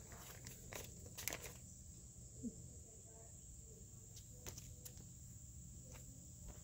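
Faint crinkling and rustling of a comic book in its plastic bag and backing board as it is handled and turned over, the loudest rustle a little over a second in, with a few softer ones later.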